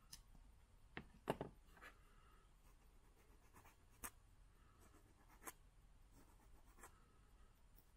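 Faint clicks and light scraping from trimming the plastic fake reservoir off an Axial SCX24 stock shock. The flush cutter nips the plastic just over a second in, the sharpest click, and then a small hand file scrapes the stub smooth, with a few more scattered small clicks.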